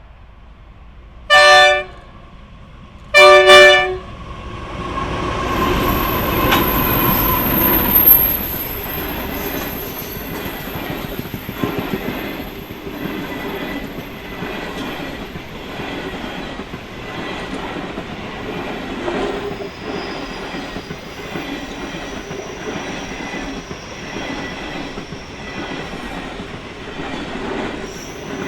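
A train sounds two short horn blasts, then passes close by with a steady rumble and a rhythmic clatter of wheels over the rails. A high wheel squeal is heard for a few seconds as it draws level.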